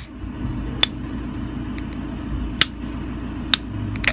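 Fingernail clicking against the pull tab of an unopened aluminium soda can, a few sharp ticks about a second apart, over a steady low hum.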